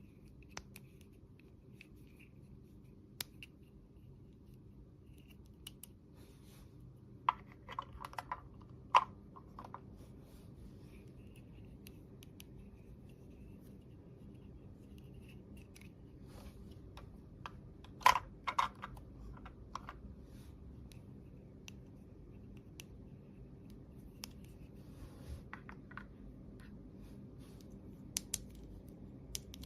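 Small plastic toy pieces handled by hand: scattered clicks, taps and light scrapes, with louder clusters of clatter about a quarter of the way in and again past the middle, over a faint steady hum.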